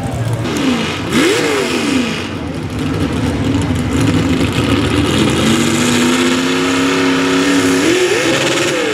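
Pulling truck's engine running hard under load, its pitch falling, then rising sharply and falling again; later it holds steady for a few seconds before rising and dropping off once more near the end.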